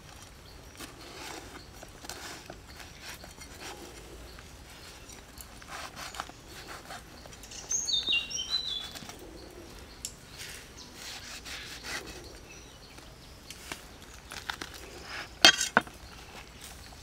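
A knife cutting through a ripe jackfruit and hands pulling the pulp apart: soft cutting and tearing with scattered small clicks. A short bird chirp of quick descending notes comes about eight seconds in, and a sharp knock about fifteen seconds in.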